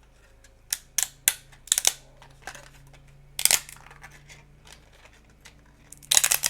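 Small hard 3D-printed plastic parts clicking and tapping as they are handled and set down on a table: a few quick clicks about a second in, a sharp knock around the middle, and a cluster of clicks near the end, over a faint steady low hum.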